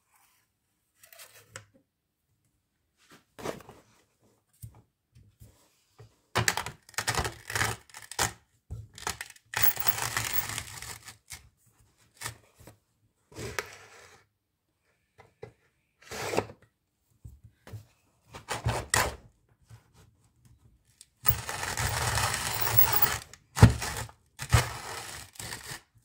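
Vintage PeDe wooden box coffee grinder being handled: its wooden drawer sliding and its metal hopper clicking and scraping, with scattered knocks. Two longer stretches of steady rasping, about ten seconds in and again a little past twenty seconds, the second followed by a sharp knock.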